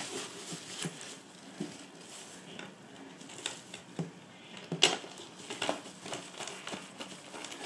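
Quiet handling noise inside a suitcase: the fabric liner rustling and small clicks and taps as the handle's mounting screws and bracket are jiggled into line, with one sharper click a little under five seconds in.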